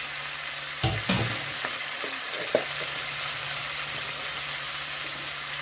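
Oil sizzling steadily in a frying pan under freshly added okra, potato and tomato, frying on an onion base. A few brief knocks come about a second in and again near two and a half seconds.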